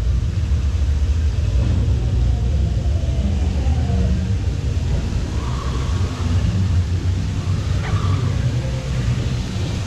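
A steady low rumble around a water-ride raft moving through a lagoon, with a few faint higher sounds coming and going over it.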